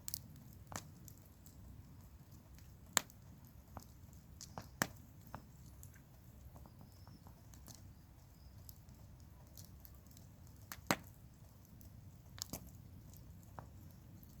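Wood campfire crackling: irregular sharp pops and snaps over a low steady background noise, with louder pops about three seconds in, about five seconds in and near eleven seconds.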